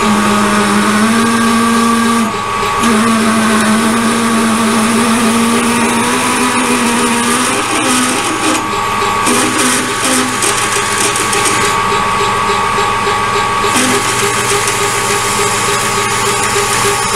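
Metal lathe running at low speed while a drill bit is fed into the spinning steel workpiece, a steady machine hum. A droning cutting tone wavers and breaks up over the first ten seconds or so, then drops away.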